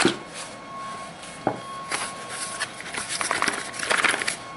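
A small cardboard box being handled and worked open by hand: a knock at the start and another about a second and a half in, then a run of rustling and scraping near the end.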